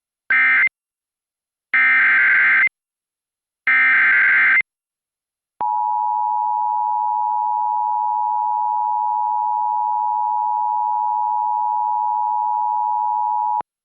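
Emergency Alert System signal: three bursts of buzzy digital data tones (the SAME header), the first one short, followed by the two-tone EAS attention signal held steady for about eight seconds before it cuts off. It announces the start of the next emergency alert.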